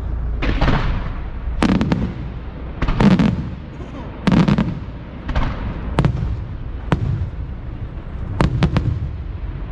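Fireworks display: a string of sharp bangs from bursting shells, about a dozen reports at irregular intervals, some in quick clusters of two or three, over a steady low background noise.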